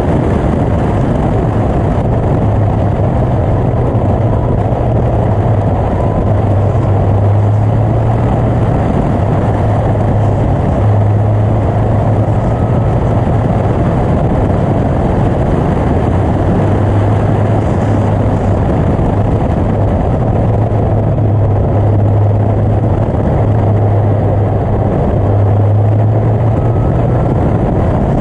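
Onboard sound of a Caterham Seven 360 at speed on a race track: engine note under load and wind rushing over the open cockpit, loud and steady, with the low drone swelling and easing as the car goes through the bends.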